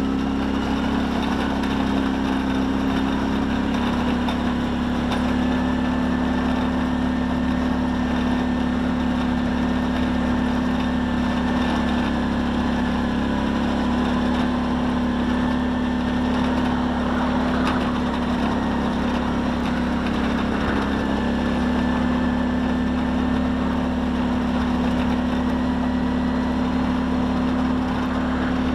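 Kawasaki Brute Force 650 ATV's V-twin engine running at a steady pace as the quad drives along.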